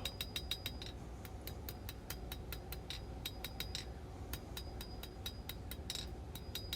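Hand hammer striking hot 1095 high-carbon steel on an anvil in a steady run of light blows, several a second, each with a short high ring, while a knife blank's point is drawn out and evened up.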